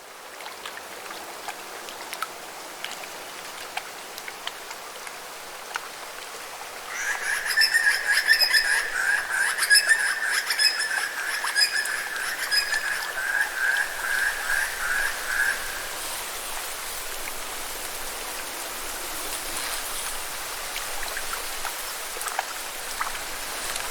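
Lake ambience: a steady hiss of water with a frog trilling loudly, a rapid pulsing call lasting about nine seconds from around seven seconds in.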